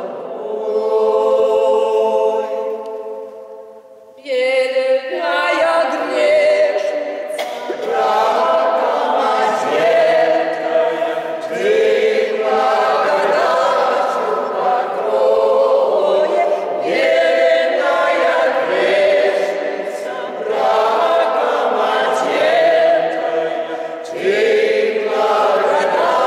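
Mixed men's and women's folk choir singing a slow Russian sacred song a cappella. A held chord fades away about four seconds in, then the voices come in together again and carry on in long phrases.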